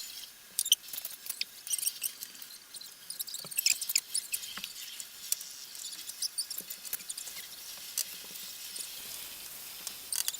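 Onions frying in hot oil in a large frying pan: steady sizzling with many irregular crackles and pops.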